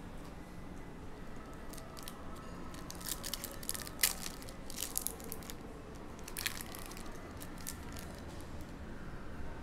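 Foil trading-card pack wrapper being torn open and crinkled by hand: a run of short crackling tears, the loudest about four seconds in, with a few more crinkles a little later.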